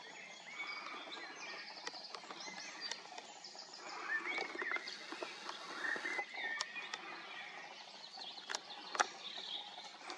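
Birds chirping and calling over a steady outdoor background hiss, with a couple of sharp clicks near the end.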